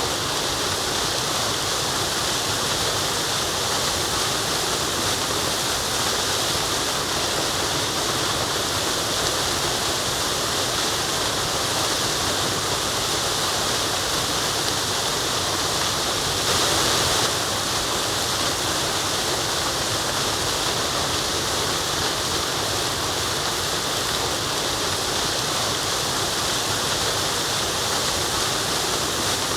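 Waterfall: a steady rush of falling water, briefly a little louder a little past halfway.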